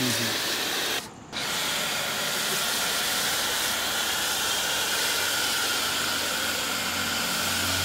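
Electric high-pressure washer spraying coloured foam through its foam cannon: a steady hiss of spray that breaks off briefly about a second in, then carries on.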